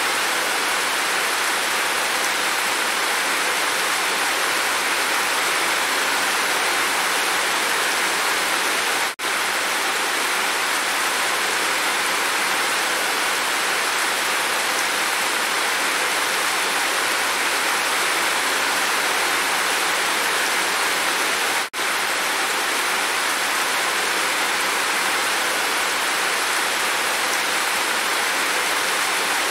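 Heavy rain falling in a steady, dense downpour. The sound cuts out for an instant twice.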